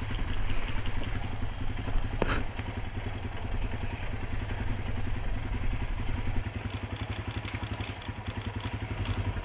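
ATV engine running with a steady, fast low putter. A single sharp click sounds about two seconds in.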